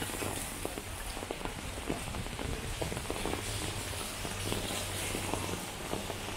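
Steady rain falling on a wet street, an even hiss with many close drops ticking.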